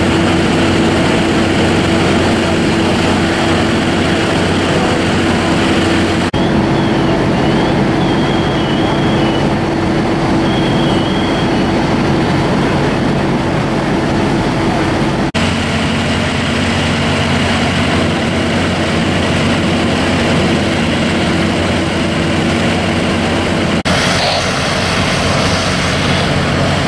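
Fire apparatus engines running steadily: a loud, even mechanical noise with constant low hums. The sound changes abruptly about six, fifteen and twenty-four seconds in.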